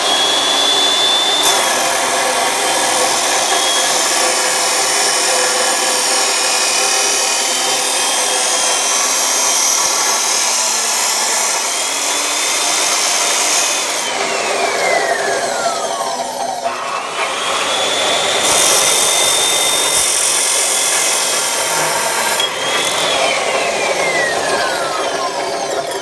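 Abrasive chop saw cutting steel box tubing: a loud grinding rush over a high motor whine. About 14 s in the saw is let off and the whine falls away as the wheel winds down. It starts again a second later for another cut and winds down again near the end.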